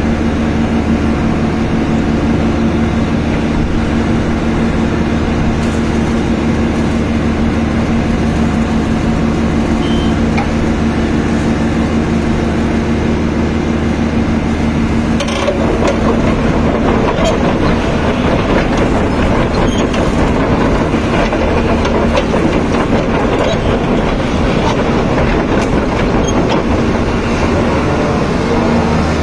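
A Hitachi Zaxis 120 hydraulic excavator's diesel engine running steadily. About halfway through, a rougher, noisier mechanical sound comes in over the engine drone as the machine works.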